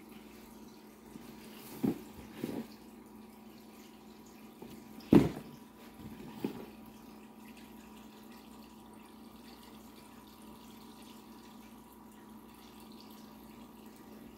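A few short knocks and bumps from handling, about four in the first seven seconds, the loudest about five seconds in, over a faint steady hum.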